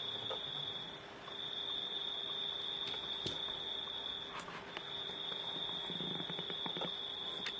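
Electronic buzzer sounding one steady high-pitched tone that cuts out briefly twice. A few faint clicks and knocks sound over it. The tone is the alert of a detector that sounds when it picks up a mobile phone's signal.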